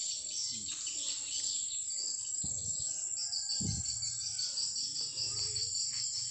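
Insects chirping steadily, with a high, rapidly pulsing chirp joining about three seconds in.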